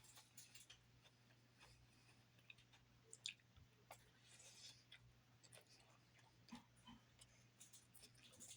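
Faint, scattered crunches and mouth clicks of someone chewing salad, with one sharper click about three seconds in, over near silence.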